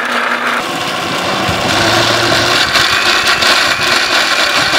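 Electric mixer grinder (blender) running at speed, grinding black grapes into juice in its jar, a steady loud motor whir with the grinding of pulp, its sound shifting a little about half a second in.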